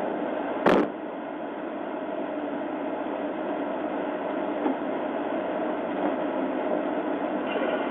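Steady rumbling noise of running vehicle engines, with one sharp click just under a second in.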